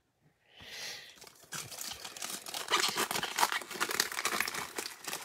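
Foil wrapper of a 2020 Donruss Optic football card pack crinkling as it is torn open by hand: a soft rustle about half a second in, then dense, steady crackling from about a second and a half in.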